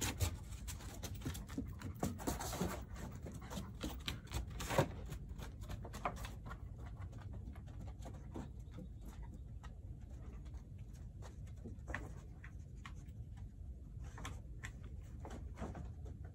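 A dog's claws ticking and tapping unevenly on a wooden deck as it walks and searches, over a steady low wind rumble.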